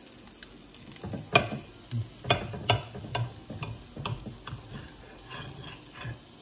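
A knife cutting through a grilled chicken breast held down with metal tongs on a plate: an uneven string of sharp clicks and scrapes as the blade and tongs knock and drag on the plate, the loudest a little over a second in.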